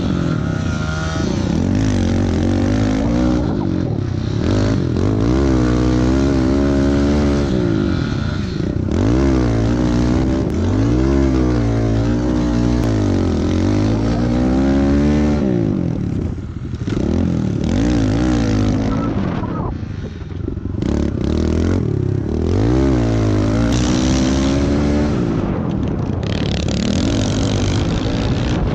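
Small four-stroke single-cylinder pit bike engines revving hard and backing off again and again, their pitch rising on each burst of throttle and falling into the corners. The sound is picked up onboard one bike, with a second bike close behind.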